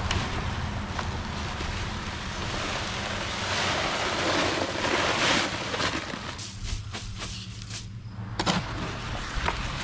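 Dry concrete mix pouring out of an 80-pound paper bag into a plastic wheelbarrow tray, a steady rushing hiss that is loudest about four to five seconds in and then dies away, with a few light knocks near the end.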